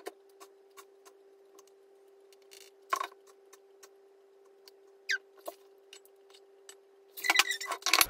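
A metal spoon scooping and tapping sugar in a clear plastic container: scattered light clicks and scrapes, with a louder clatter of handling the container near the end. A faint steady hum sits underneath.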